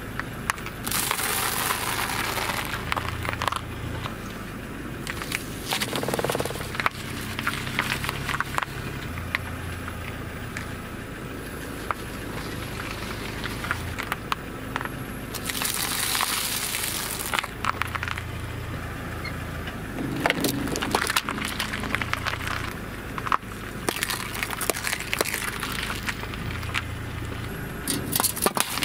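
Car tyre rolling slowly over dry instant noodles and then a pile of potato chips, crushing them in several loud bursts of crunching and crackling. A car engine runs low beneath it.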